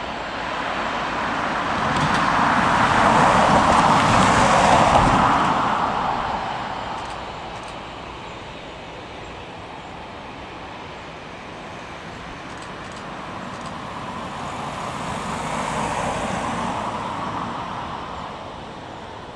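Two vehicles passing, a loud one swelling up and fading away over the first several seconds, then a quieter one rising and fading near the end.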